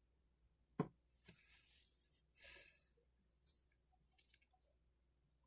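A single sharp click about a second in as a shower diverter part is set down on a stone surface, otherwise near silence with a couple of faint breaths.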